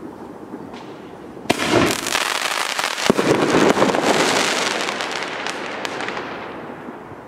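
Pyroland Pech & Schwefel firework with salute and crackling stars going off: a sudden loud rush about a second and a half in, a sharp bang about three seconds in, then dense crackling that slowly fades away.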